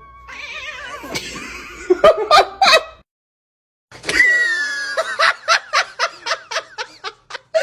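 A person laughing: a rhythmic run of laugh pulses, about three a second, after a short break, with shorter wavering laugh sounds before the break.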